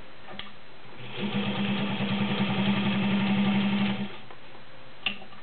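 White model 130 sewing machine stitching through two layers of garment leather with a size 16 needle. Its motor runs steadily for about three seconds with a fast, even needle beat. Single clicks come just before and about a second after the run.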